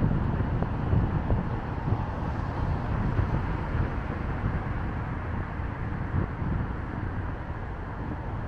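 Steady road and running noise of a moving car, with a low wind rumble on the microphone.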